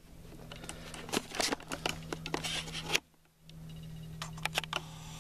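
Scattered light clicks and scrapes over a steady low hum. All sound drops out briefly about three seconds in.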